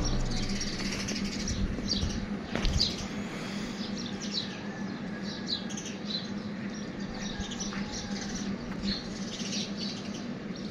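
Small birds chirping in many short, high calls scattered throughout, over a faint steady low hum, with a single sharp knock about two and a half seconds in.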